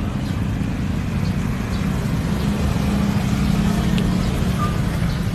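Engine and road noise of a moving vehicle, a steady low rumble, with the engine note growing louder around the middle.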